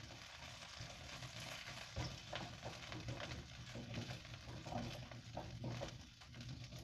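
Red bell pepper pieces sizzling quietly in oil in a nonstick wok while a spatula stir-fries them, with light scrapes and clicks of the spatula against the pan.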